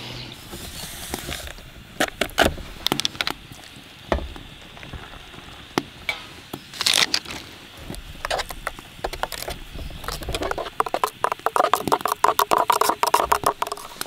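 Cups, utensils and packaging being handled to make a latte: scattered clicks, knocks and scrapes, a short rush of noise about halfway through, and a dense run of rapid clicking in the last few seconds.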